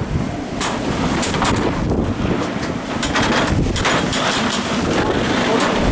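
Strong, gusty wind buffeting the microphone: a constant low rumble with irregular surges.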